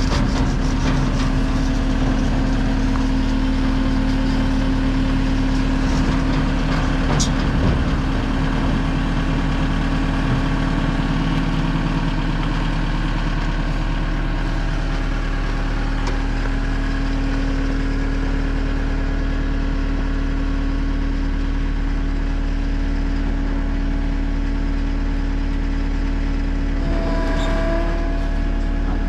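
Cat 259D skid steer's diesel engine running steadily, with a few knocks in the first several seconds and a shift in its tone near the end.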